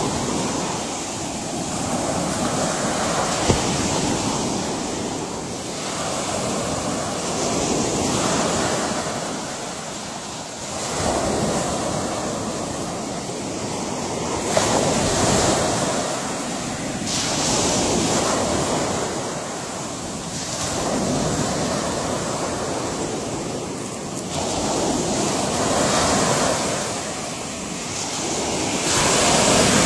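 Ocean surf: waves breaking and washing in, the rushing noise swelling and falling back every few seconds.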